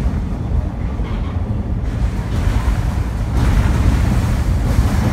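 Electric train running over a river bridge, a steady deep rumble heard from inside the carriage, growing louder and hissier about three and a half seconds in.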